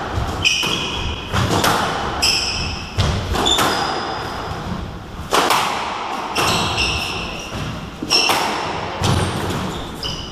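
Squash rally: the ball smacks off rackets and the court walls about once a second, echoing in the court. Between the hits come short high squeaks of the players' shoes on the wooden floor.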